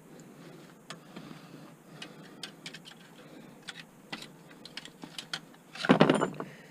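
Light clicks and taps of plastic and metal parts being handled while a desktop computer is taken apart, with a louder clatter just before the end.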